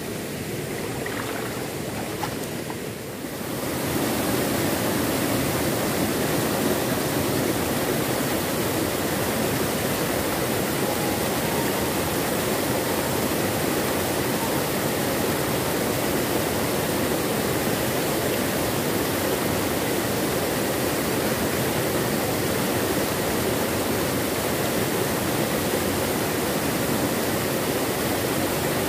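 Small river waterfall rushing steadily into a pool, heard up close as a loud, even wash of water. It comes in suddenly about three and a half seconds in, after a quieter stretch of open-air ambience.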